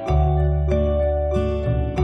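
Instrumental background music: a melody of separate notes, a new one about every half second, over a low held bass.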